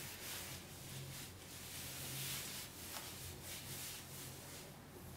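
Faint rustling and rubbing of clothing as a pair of shorts is pulled down and taken off, over a low steady hum.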